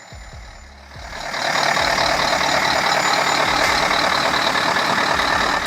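Mercedes-Benz 2651 heavy truck with its OM473LA inline-six diesel, driving over rough ground. The sound swells about a second in and then holds loud and steady, with a thin high whine running over it.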